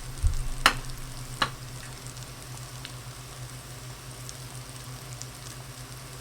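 Floured pork cutlet sizzling steadily in a pan of hot vegetable oil mixed with butter, with two sharp clicks about a second in.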